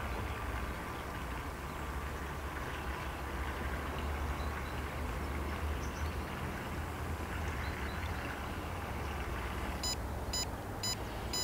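A steady low outdoor rumble, and about ten seconds in a run of short, high electronic beeps starts, about two a second.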